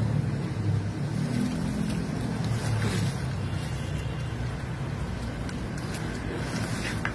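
Engine of a septic siphoning truck running steadily, with a brief rise and fall in revs about one and a half seconds in.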